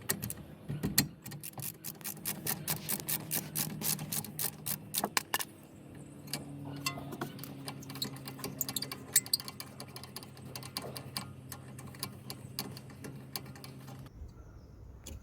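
A hand ratchet clicking rapidly as the top T50 Torx caliper guide-pin bolt is undone, the clicks thinning out after about five seconds. A steady low hum runs underneath and stops near the end.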